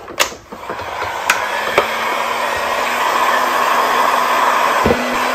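Porter-Cable electric heat gun running, a steady blowing rush with a motor hum under it, heating the edge of a Kydex holster. There is a click at the start, the rush builds over the first couple of seconds, and there is a light knock near the end.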